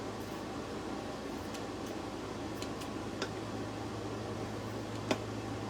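Steady low hum and hiss of room background noise, with a few faint ticks and a sharper click about five seconds in as craft materials are handled.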